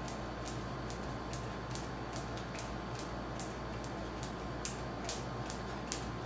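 Jump rope slapping the floor in a steady rhythm, about two and a half strokes a second, over a steady low hum.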